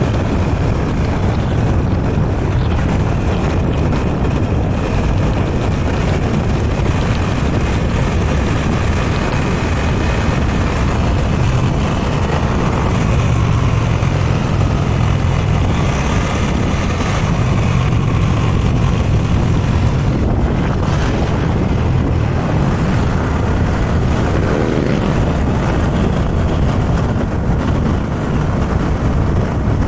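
Motorbike riding at road speed: steady wind rush on the action camera's microphone over the bike's engine and road noise.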